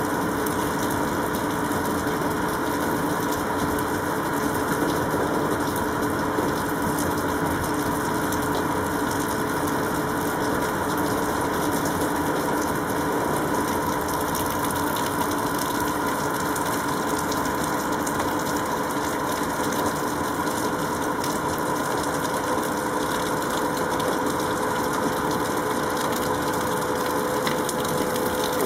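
Steady machine hum: a few constant tones over an even hiss, unchanging throughout.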